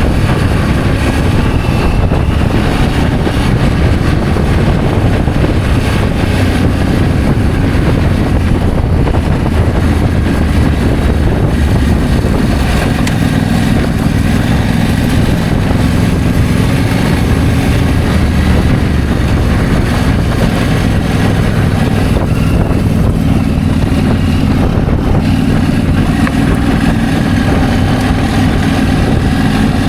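Adventure motorcycle being ridden, its engine running steadily under way. The engine note changes about thirteen seconds in, with a stronger, higher band of tones from then on.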